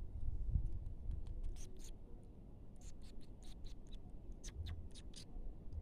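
Kitten playing: irregular scratchy clicks and taps, as of small claws scrabbling on a surface, with a soft thump about half a second in.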